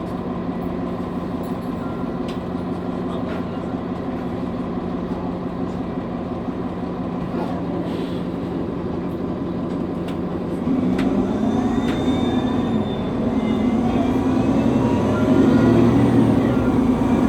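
Nova Bus LFS city bus heard from inside the cabin: the engine runs with a steady drone, with faint rattles, then about eleven seconds in it gets louder and pulls away, a whine rising in pitch as the bus accelerates.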